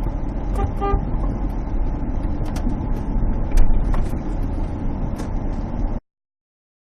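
Steady low rumble of a car driving, heard from inside the cabin, with a few light clicks and knocks; it cuts off suddenly about six seconds in.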